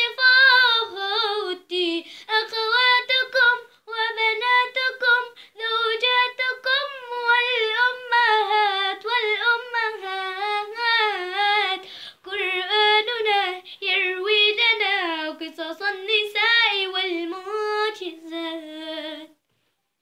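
A young girl singing unaccompanied in Arabic, one voice holding long wavering notes phrase after phrase; she breaks off a little before the end.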